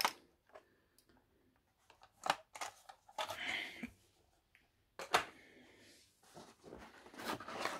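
Handling sounds as a model train and its packaging are moved about: a few light clicks and knocks, a short rustle in the middle, and a busier patch of handling near the end.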